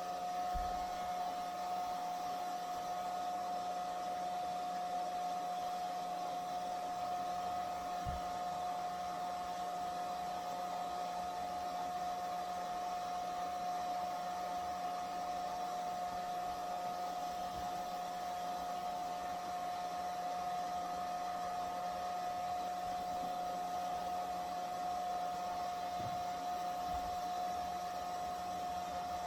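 Hair dryer running steadily: an even rush of air with a constant high motor whine that doesn't change in pitch.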